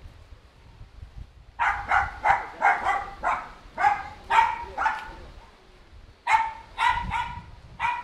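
A dog barking repeatedly: a run of about nine high barks, then about four more after a pause of about a second.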